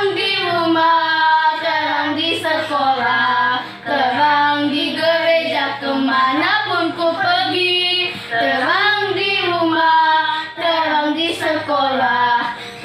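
Children singing a song melody, with a steady low backing note underneath.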